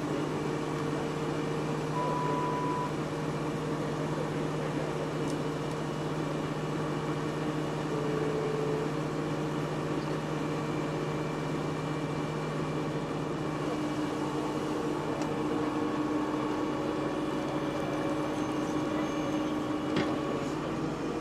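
Steady hum of idling truck engines, a low drone with several constant tones over it, with a brief higher tone about two seconds in.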